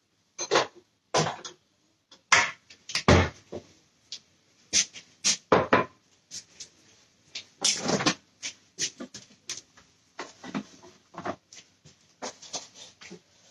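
Kitchen clatter: a busy run of short, irregular knocks and bumps as things are handled on the counter and cupboard or fridge doors are opened and shut.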